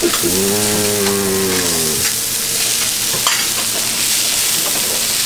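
Steady sizzling hiss of food frying, with one long, low, drawn-out voice-like call near the start that lasts about a second and a half.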